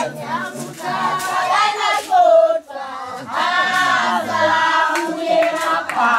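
A group of women and children singing a traditional Swazi song together, with hand claps.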